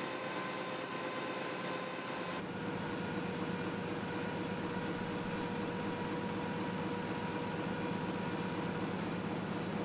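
Goss newspaper web press running: a steady mechanical din with a few constant tones. The sound shifts abruptly about two and a half seconds in, to a fuller, deeper rumble.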